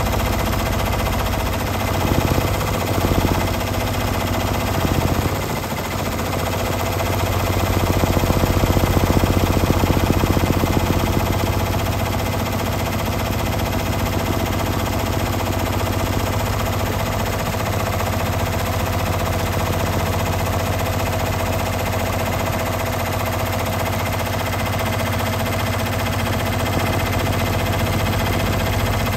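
Multi-needle Brother embroidery machine running at speed: the needle bar hammering rapidly through the fabric in a steady clatter over the machine's hum.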